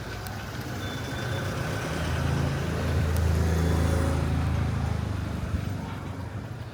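Car engine and road noise, a low hum that grows louder to a peak about three seconds in and then eases off.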